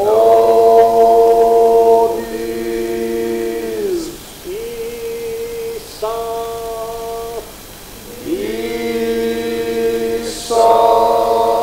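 Choral chanting: voices holding long notes together, one after another, each sliding into pitch and held for two to four seconds.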